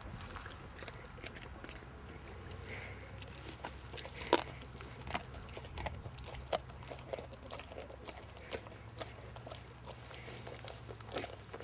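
English Mastiff chewing and gnawing a raw pork butt: irregular wet chewing and crunching, the loudest crunch about four seconds in, over a steady low hum.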